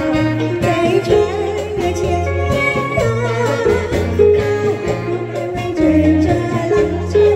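A woman singing through a microphone over live band accompaniment.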